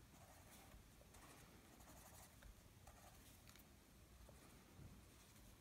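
Faint scratching of a wax-based Prismacolor coloured pencil on paper, in short irregular strokes as small shapes are filled in.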